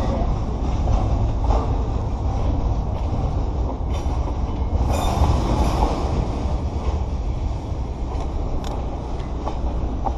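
Freight train of container wagons rolling past in a rail yard: a steady rumble of wheels on the track, with a few sharp clicks.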